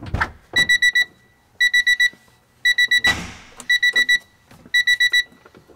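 Electronic beeper sounding in quick groups of four beeps, about one group a second, with a thud near the start and another about three seconds in.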